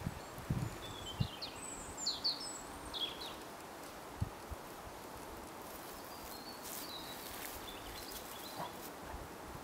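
Quiet forest ambience: a songbird gives a quick run of high chirps about two seconds in, and fainter chirps follow later. A few soft low thuds sound in the first half.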